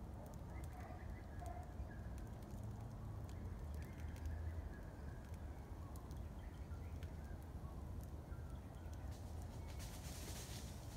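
Small wood fire of kindling sticks crackling in a metal fire pit, with scattered sharp pops, a steady low rumble and a brief hiss near the end. Faint bird calls sound in the background.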